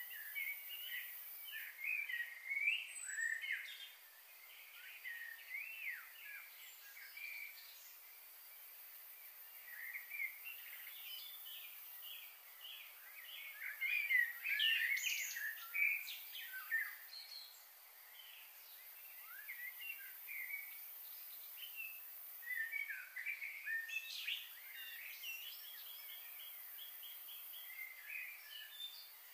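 Small birds chirping and twittering: busy bursts of quick high notes with short lulls between them, loudest about halfway through.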